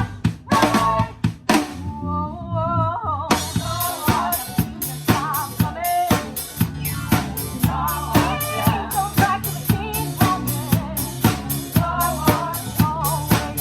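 A drum kit plays a steady rock beat of snare and bass drum inside a band arrangement. The drums drop out briefly about two seconds in, leaving a wavering melody line, and come back in with the band about a second later.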